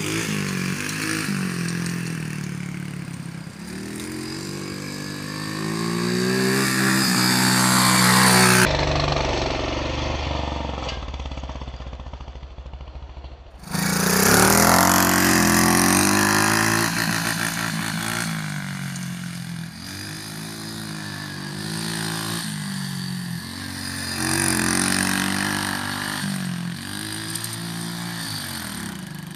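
Small pit bike's single-cylinder engine revving up and down over and over as it rides, louder and quieter as it comes near and goes away. About nine seconds in the sound cuts to a few seconds of lower, duller rumble, then jumps back loud to the revving engine.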